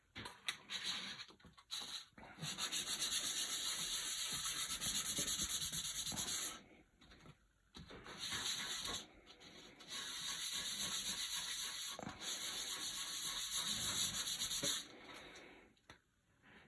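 A red plastic pinball playfield insert rubbed back and forth by hand on a sheet of dry sandpaper, in quick even strokes, sanding its face flat and taking off the old residue. The sanding comes in three bouts with short pauses between.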